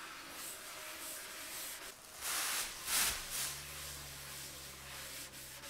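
Faint rubbing of a gloved hand wiping wood stain across a red oak surface, with a few brief, stronger strokes. A low steady hum comes in a little past halfway.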